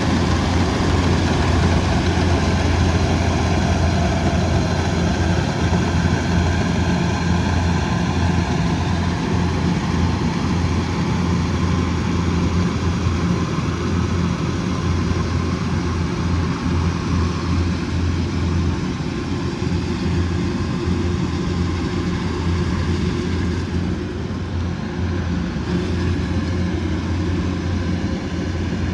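Kubota DC108X combine harvester's diesel engine running steadily with a strong low drone, a little quieter toward the end.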